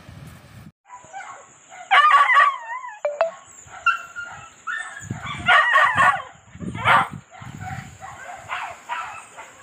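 Animal calls, dog-like: a run of yelps and wavering whines, loudest about two seconds in and again around five to seven seconds, over a thin steady high-pitched tone.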